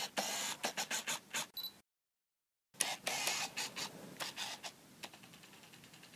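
Logo-sting sound effect: scratchy, glitchy crackling full of sharp clicks, in two bursts with a brief silence about two seconds in, the second trailing off into fast, quieter ticks about five a second.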